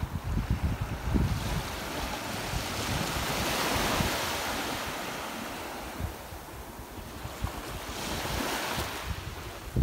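Small sea waves breaking and washing up a sandy shore, the wash swelling to its loudest about four seconds in. Wind buffets the microphone in the first second or so.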